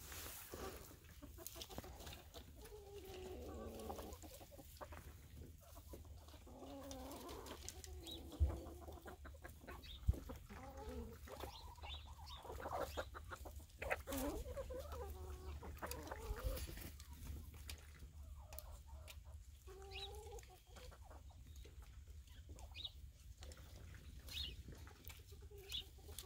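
Flock of chickens clucking softly on and off, low wavering murmurs from hens foraging, with two short knocks about eight and ten seconds in.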